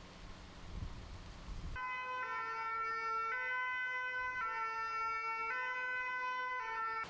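An emergency vehicle's two-tone siren, the French hi-lo kind, switching between its two notes about once a second. It starts about two seconds in after a low rumble and cuts off suddenly near the end.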